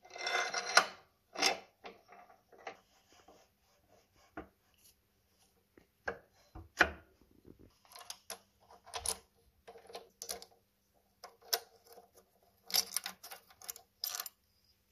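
Steel hand tools clinking, tapping and scraping against the metal parts of a Ford Model T transmission: the band ears, springs and adjusting nuts. Irregular clinks and short rattles come in clusters, busiest at the start and again near the end.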